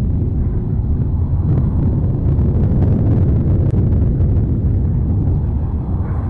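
A volcanic eruption roaring: a loud, steady low rumble with no breaks.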